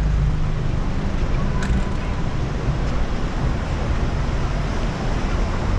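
Steady city traffic noise with wind rumbling over the microphone as an e-bike rides through street traffic.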